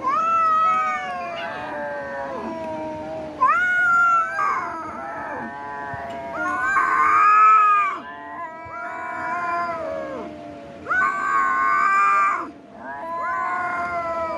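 Cats meowing and yowling in long, overlapping calls that rise and fall in pitch, with no break between them and louder cries a little before halfway and again about three-quarters through.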